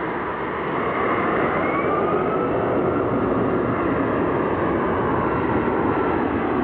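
Airbus A380's four jet engines as it flies low toward and over the listener: a loud, steady jet rumble that swells about a second in and then holds. Faint whining engine tones rise in pitch early on top of it.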